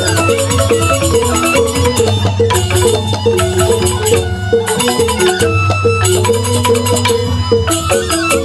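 Balinese gamelan ensemble playing an instrumental tabuh petegak. Mallet-struck metallophones sound quick, interlocking melodic figures, with a kendang drum and bamboo suling flutes in the mix.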